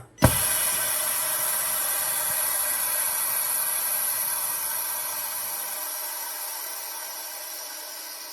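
Phone-screen bubble-remover pressure chamber releasing its compressed air: a click, then a steady hiss that slowly fades as the chamber's pressure drops at the end of the debubbling cycle.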